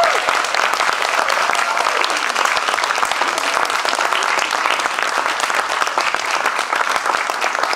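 Audience applauding steadily, many hands clapping, with a few voices calling out over it.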